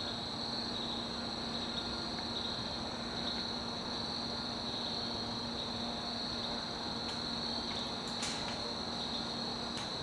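Steady, high-pitched insect chorus, unbroken, with a faint steady low hum beneath it.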